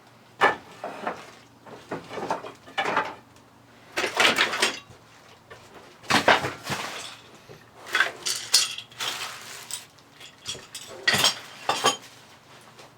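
Hard objects and tools clattering and knocking as they are shifted and set down on a workbench to clear space, in an irregular string of bumps and rattles.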